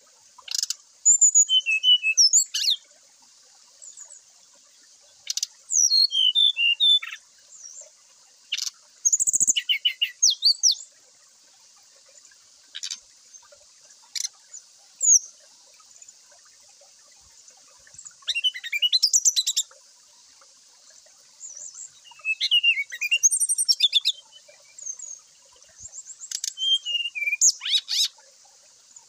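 Brown-chested jungle flycatcher singing in short bursts of quick, sharp, high notes, slurred whistles and rapid trills, each phrase a second or two long with pauses of a few seconds between, over a faint steady high hiss.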